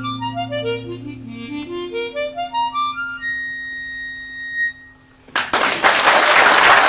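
Harmonica in a neck rack, with acoustic guitar, playing the closing phrase of a slow Scottish song: a quick run of notes up and down, then one high held note that stops about four and a half seconds in. Just after, the audience bursts into applause.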